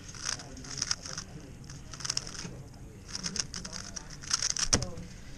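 A Mystic WRM 2021 3x3 speed cube being turned fast during a speedsolve: about five quick bursts of clicky, clattering turns with short pauses between them.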